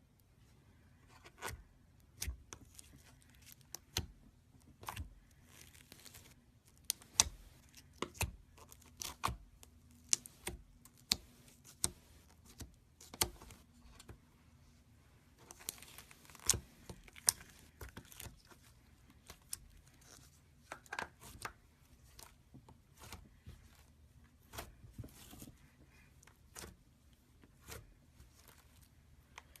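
Gold slime being squeezed and stretched by hand, giving irregular sharp clicks and pops one or two a second, with soft crinkly squishing between them.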